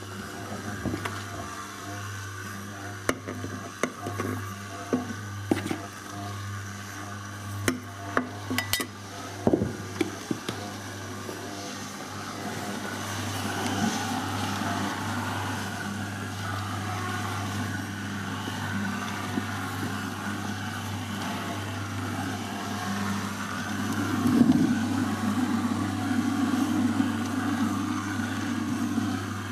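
Electric boilie dough mixer running: the motor hums steadily while its six-finger shaft churns sticky dough in a stainless steel pot. A run of short knocks comes in the first ten seconds, and the churning grows louder about halfway through and again near the end.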